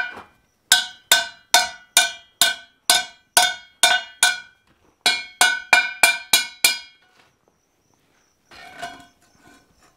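Hand hammer striking a red-hot steel ring against a cone mandrel, each blow ringing. There are two runs of quick blows, about nine and then six slightly faster, with a short pause between, and the hammering stops about 7 seconds in. The blows are correcting the ring's curve to make it round.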